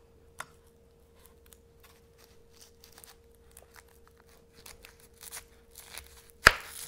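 Kitchen knife cutting through a red onion and its dry papery skin being peeled off, with faint crackling and crunching, then one sharp knock on the cutting board near the end.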